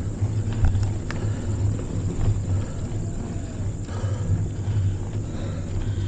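Mountain bike riding noise on a paved lane: a steady low rumble of wind on the camera microphone, with scattered light ticks and clatter from the bike.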